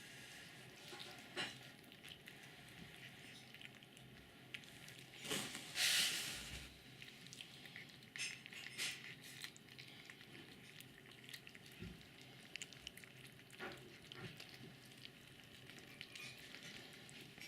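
A cat eating: scattered small clicks and crackles of chewing, with a louder rustling burst about six seconds in.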